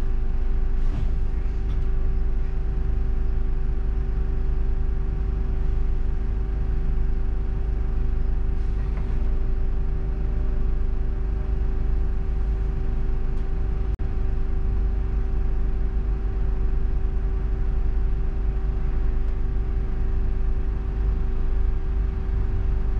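Ride inside a double-decker bus: a steady low engine and road rumble with a constant droning hum, and a few faint knocks and rattles.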